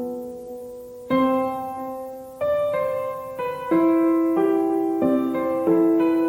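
Background music: a slow, gentle piano melody, single notes struck one after another and left to ring and fade.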